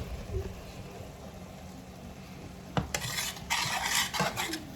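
Spoon stirring cabbage in a cooking pot: a click, then rasping, scraping stirring strokes from about three seconds in.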